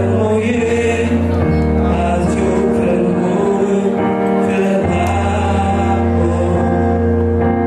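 Man singing into a microphone over instrumental accompaniment with sustained low bass notes that change chord about a second and a half in and again near five seconds.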